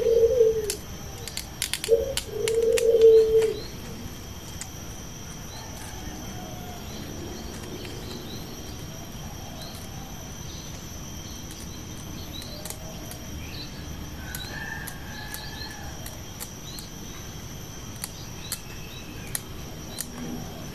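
A dove cooing twice in the first few seconds, the loudest sounds here. Small birds then chirp faintly, over a steady high-pitched hum and a few light clicks.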